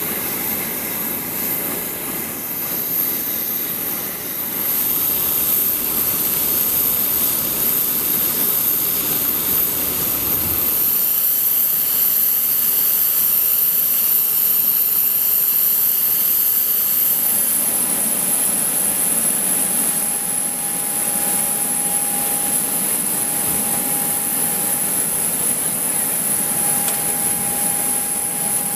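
Jet turbine running steadily on an aircraft parking apron: a high-pitched whine over rushing air. The sound shifts in character a few times, and a steady mid-pitched tone joins about two-thirds of the way through.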